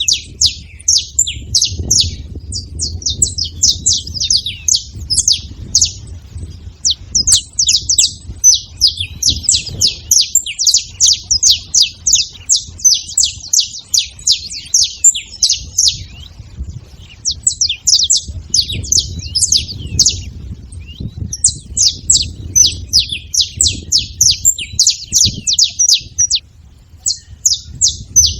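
Saffron finches chirping in a fast, almost unbroken chatter of high, sharp notes, with a few brief pauses, over a low rumble.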